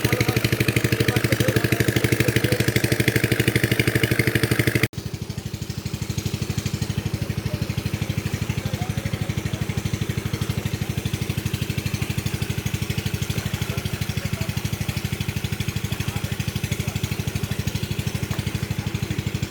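A small engine running steadily with an even, fast chugging pulse. It cuts out for an instant about five seconds in, then carries on slightly quieter.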